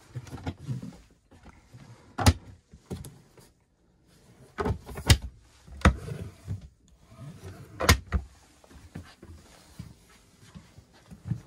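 Wooden overhead cupboard doors in a motorhome being opened and shut by hand: a series of sharp clicks and knocks from the catches and doors, with handling rustle between them.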